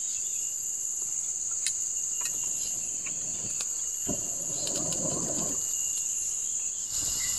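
Steady high-pitched drone of insects, crickets or similar, with a few faint clicks and a brief rustle about four seconds in.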